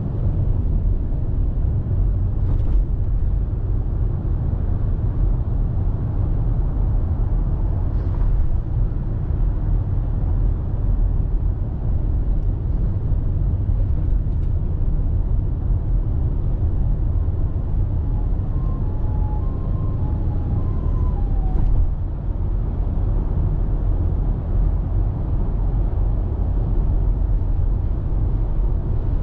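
Steady low drone of engine and tyre-on-road noise inside a Nissan Serena's cabin while driving at expressway speed, with a few faint ticks.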